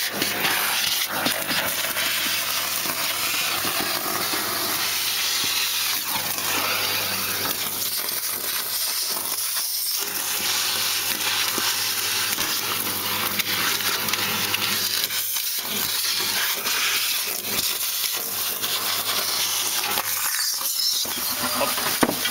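Vacuum motor of a homemade cyclone dust separator running steadily, giving a loud rushing hiss over a low hum. Leaves and debris being sucked through the hose add scattered ticks and rattles.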